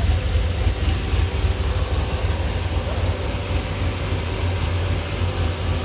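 Pickup truck engine idling, a steady low rumble.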